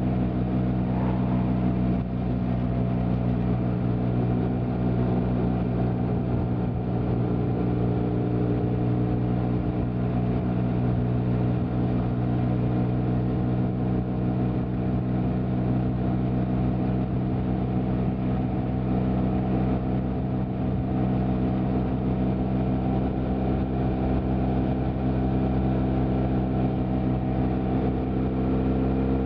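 BMW F800GT parallel-twin engine and exhaust at a steady cruise on the road, engine speed holding almost constant, with the pitch starting to rise right at the end.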